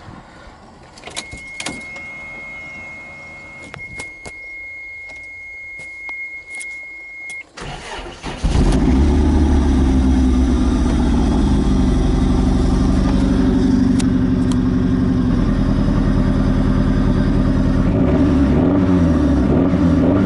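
A steady high electronic tone sounds for about six seconds, then the Isuzu Impulse RS's turbocharged four-cylinder engine cranks briefly, starts about eight seconds in and runs loudly, its pitch rising and falling near the end. The owner says the engine is running way too rich and calls the sound typical of that.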